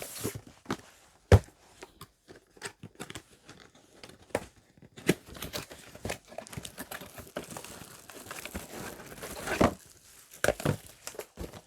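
Speaker packaging being opened by hand: cardboard and wrapping crinkling and tearing, with scattered knocks from the box being handled, and a longer, louder rustle near the end.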